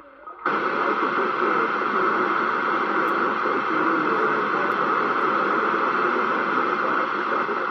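CB radio speaker hissing with steady loud static, opening suddenly about half a second in: a 27 MHz FM receiver with its squelch open on a noisy channel.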